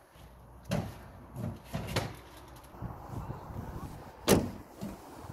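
Footsteps on metal stair steps: a handful of separate knocks, the sharpest and loudest near the end.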